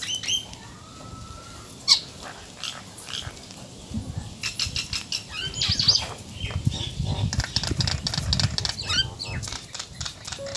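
Small birds chirping, a scatter of short high calls that dip in pitch, with a sharp click about two seconds in. A low rumbling noise runs through the middle.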